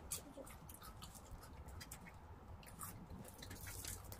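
Faint eating sounds: chewing, with scattered small clicks and crackles as crisp fried vegetable fritters (bakwan) are torn apart and eaten.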